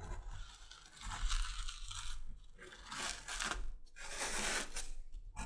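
Adjustable stitching groover cutting a stitch groove along the edge of 6 to 7 ounce leather: a dry scraping, crunching cut in several short strokes.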